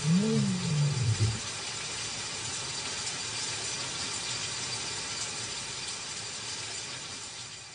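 A lion's low roar trails off in a last rising-and-falling grunt that ends about a second and a half in. A steady hiss follows.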